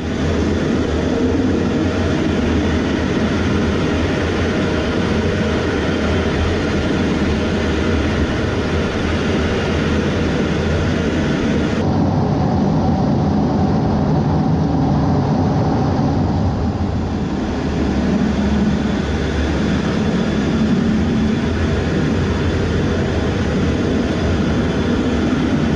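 The EA-18G Growler's twin turbofan jet engines running, heard from inside the cockpit as a steady, loud rumble with hiss above it. About twelve seconds in, the hiss drops away abruptly and the noise becomes duller.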